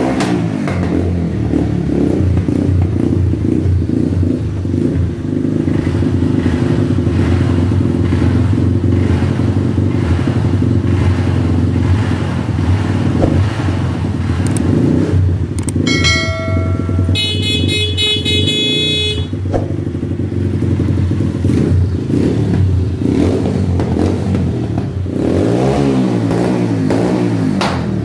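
Rusi KRY 150 dirt bike engine running through a freshly fitted Norifumi Rocket 4 aftermarket exhaust. It settles from a rev into a steady idle, then is revved up and down a few times near the end.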